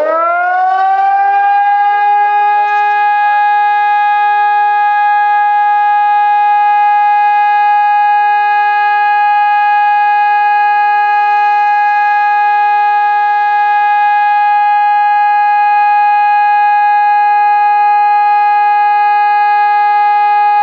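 Civil defense siren sounding a test alarm: it winds up quickly in pitch, settles within about two seconds, and then holds one loud, steady tone.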